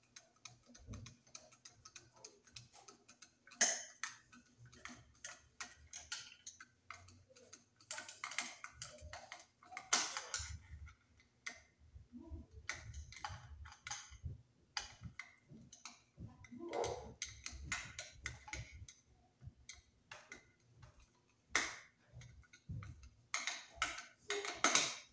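Screwdriver tightening the cable clamp screw in a metal electrical box: many irregular small metallic clicks and scrapes, with a few louder clicks.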